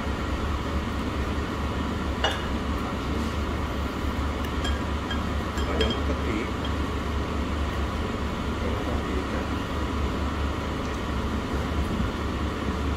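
Restaurant dining room ambience: a steady low hum with a few light clinks of cutlery and dishes.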